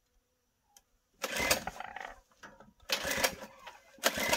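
Small gas engine on a transfer pump being pull-started: three tugs of the recoil starter, each a short burst of cranking, about a second apart. It doesn't catch because its kill switch is still set to off.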